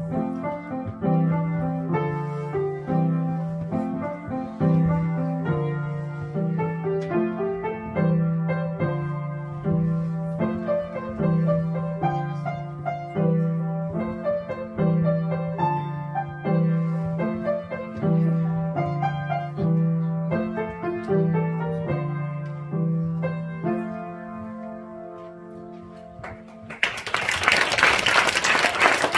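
A child plays a piece on an upright piano, with a steady repeating bass figure under the melody. The piece ends on a held chord that fades about 24 seconds in, and applause breaks out near the end.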